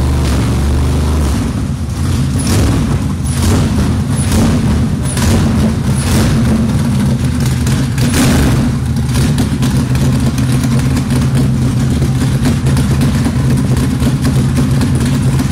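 Camaro GT3 race car's V8 engine running loud, with a run of sharp cracks through the first half, then running steadily.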